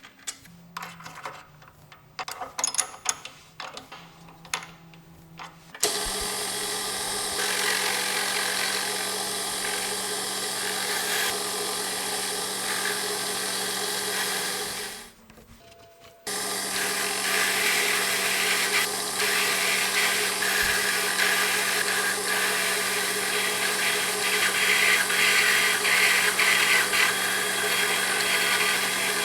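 Metal lathe turning a part for a hand vise handle. A few clicks and knocks of handling at first, then the lathe runs steadily with a cutting hiss, stops for about a second partway through, and starts again, cutting more loudly.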